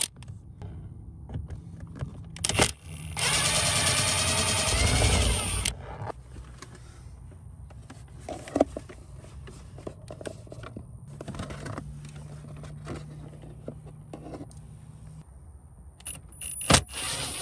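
Cordless power driver whirring for about two and a half seconds as it spins out a screw, its pitch rising slightly. Around it, sharp clicks and clatter of bits and plastic trim being handled.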